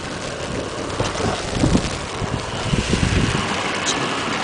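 Wind buffeting the microphone in gusts over the steady running of a snow-removal vehicle.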